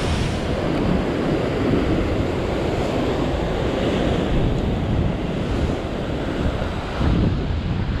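Rough ocean surf breaking and washing over a rock shelf, a steady rushing roar, with wind buffeting the microphone.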